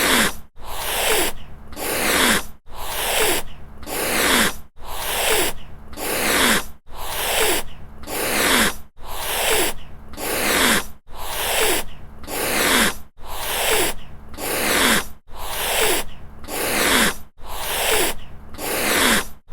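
Cat hissing, over and over: a pair of hisses about a second apart, the pair repeating about every two seconds.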